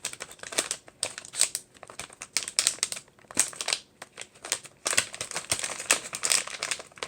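Close rustling and crinkling from hands handling the wires of a Cat 5 cable: an irregular run of small crackles and clicks.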